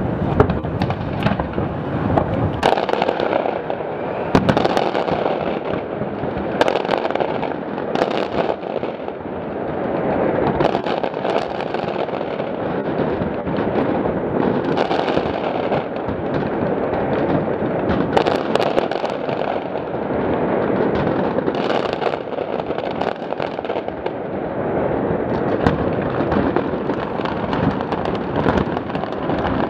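Aerial fireworks display in full barrage: shell bursts go off one after another without a break. Many sharp bangs sit over a constant wash of overlapping explosions.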